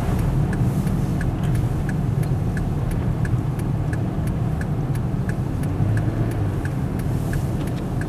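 Inside a car's cabin while driving on a snowy highway: a steady low rumble of engine and tyres, with the hazard-light flasher ticking evenly a few times a second.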